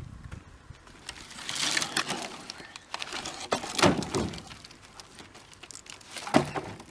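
Sawmill scrap boards and slabs knocking and clattering together as they are handled and tossed, with scraping between several sharp wooden knocks; the loudest knocks come about four seconds in and near the end.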